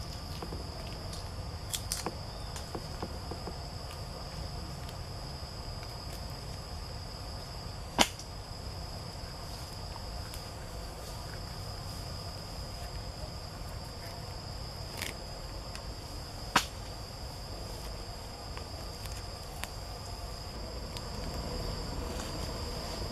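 Steady high-pitched drone of insects, with a few sharp clicks breaking through, the two loudest about eight and sixteen and a half seconds in.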